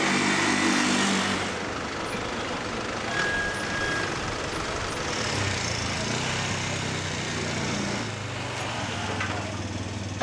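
Cargo motor tricycle's engine running as it passes close by, loudest for the first second and a half, then a quieter, steady low engine drone from about halfway on, as it stands running.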